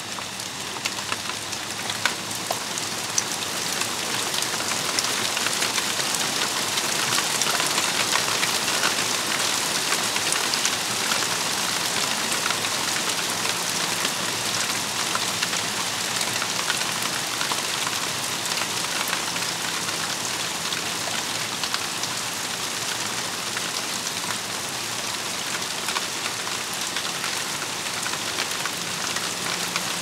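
Steady rain falling, an even hiss dotted with many sharp ticks of individual drops close by, growing heavier over the first several seconds and then holding steady.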